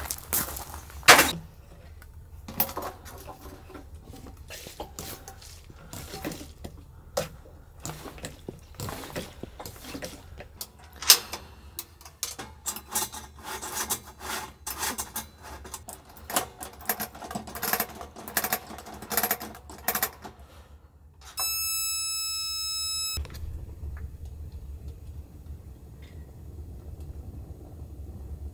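Clicks and knocks of hands working a Paseco kerosene heater's lever and parts. About 21 seconds in comes a high electric buzz lasting about two seconds as the igniter fires and lights the wick, followed by a steady low rumble.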